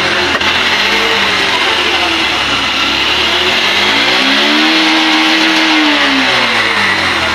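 Motorcycle engine being revved: a short rev near the start, then a longer, slow rev that climbs and drops back down in the second half.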